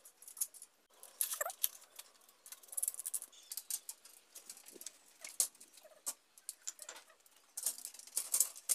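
Faint, irregular clicks, scuffs and light knocks from solar panels and their metal mounting frame being handled and lifted upright, with scattered sharper ticks.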